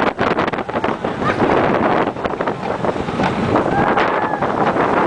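Bobsled roller coaster car running fast down its track: wind rushing over the microphone and the rattle and clatter of the car's wheels on the trough.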